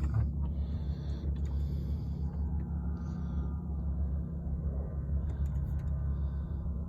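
Low, fluttering rumble of wind buffeting the microphone on a sailboat moving slowly under sail, with a few faint ticks about five seconds in.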